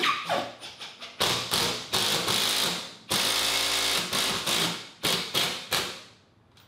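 A power driver sinking a 3-inch lag screw through a steel mounting bracket and drywall into a wooden post. It runs in short bursts, then a longer steady run about halfway through, then shorter bursts that fade toward the end as the screw seats.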